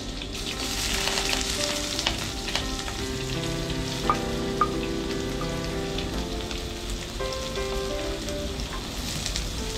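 Sliced onions sizzling as they go into hot oil in a clay pot, with a steady frying hiss that is strongest in the first few seconds. Two sharp clicks come a little after four seconds in, over background music.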